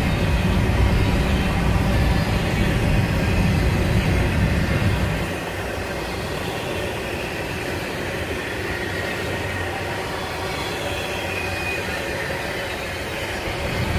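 Double-stack intermodal container train rolling past: the steady rumble and clatter of the well cars' wheels on the rails. The deep rumble eases about five seconds in and builds again near the end.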